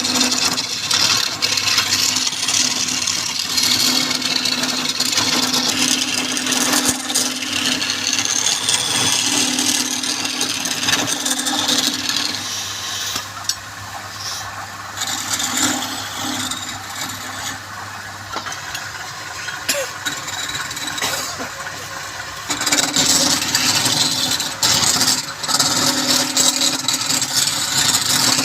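Wood lathe running with a steady motor hum while a turning tool scrapes and cuts the spinning wood. The cutting eases off for several seconds midway, then starts again strongly.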